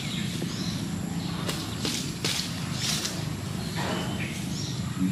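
Leafy undergrowth rustling and snapping as it is pulled by hand, in several short crackly bursts.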